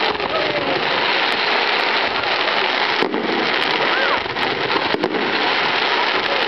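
Fireworks display: a dense, continuous crackle, with sharper bangs about three seconds in and again about five seconds in.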